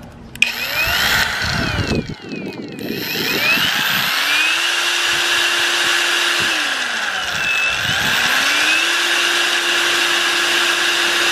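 Brushless cordless angle grinder running with no load: it spins up with a rising whine and runs steadily, winds down when the trigger is released, then spins up and runs again.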